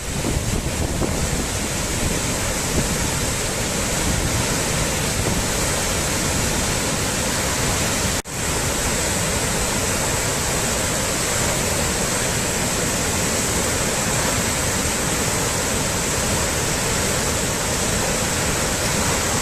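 Floodwater rushing in a steady, loud torrent, with a momentary dropout about eight seconds in.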